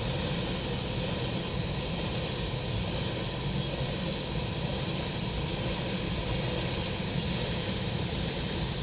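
CN manifest freight train cars rolling past: a steady noise of steel wheels running on the rails.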